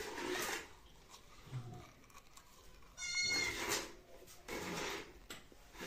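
A goat bleating several times in short calls; the call about three seconds in is high and wavering.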